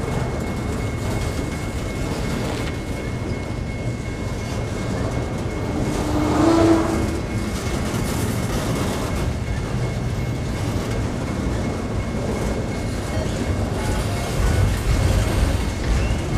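Freight train of enclosed autorack cars rolling past, a steady rumble of steel wheels on the rails. A brief squeal about six and a half seconds in is the loudest moment, and the low rumble swells near the end.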